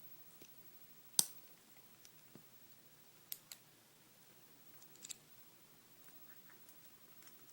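Sparse, light metallic clicks of a small tool poking at the stuck top pin in a Kwikset pin-tumbler lock's pin chamber, the sharpest about a second in.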